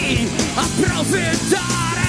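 Live punk rock band playing loud, with electric guitars and drums driving a steady beat.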